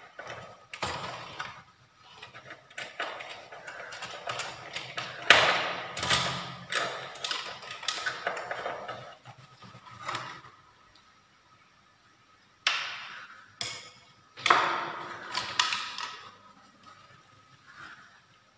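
Screwdriver and hands working inside a stereo amplifier's metal chassis: scattered clicks, scrapes and clattering as screws are taken out and the main circuit board is lifted free. The loudest knock comes about five seconds in, with a quiet stretch a little past halfway before more sharp clicks.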